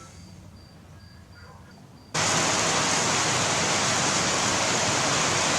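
Storm noise from the balcony: a loud, even rushing hiss that starts suddenly about two seconds in and cuts off suddenly at the end, after a faint low rumble.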